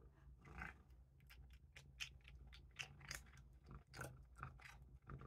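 Calico cat crunching and chewing a small dry treat: an irregular run of short, crisp crunches.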